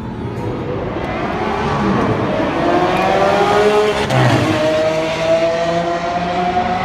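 Supercar engine accelerating hard, its pitch climbing steadily. About four seconds in it breaks off briefly for a gear change, then climbs again in the next gear.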